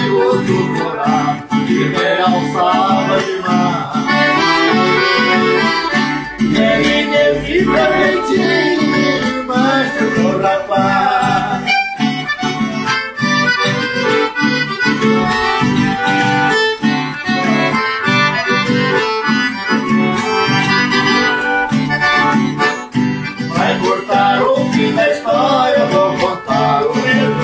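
Piano accordion and a small plucked string instrument playing a tune together, with a steady strummed rhythm under the accordion's melody.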